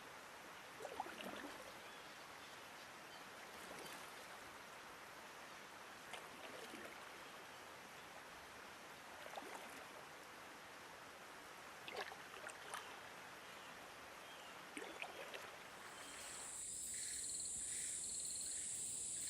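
Flowing river water with a small splash every few seconds. Near the end it changes to a loud, steady, high-pitched chorus of rainforest insects.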